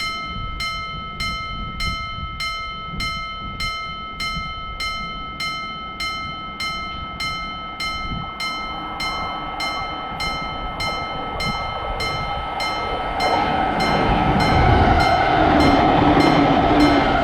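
Japanese railroad crossing bell ringing its steady "kan-kan" at about two strikes a second. From about halfway a train is heard approaching, and it passes loudly over the last few seconds.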